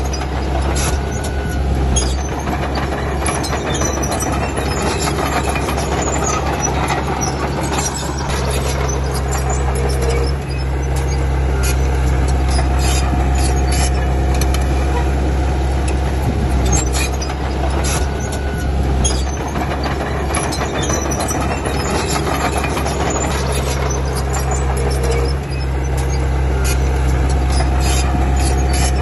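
Komatsu D31P crawler bulldozer's diesel engine running steadily under load, with clanking and metallic squeals from its steel tracks. The engine note and clatter rise and ease in a repeating cycle of about 8 to 9 seconds.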